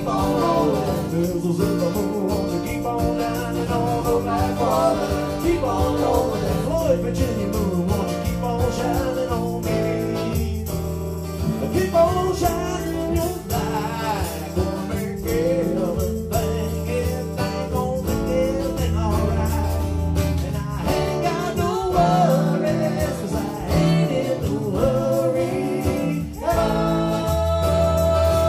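Live band playing a song with singing, over keyboard, drums and a strong bass line.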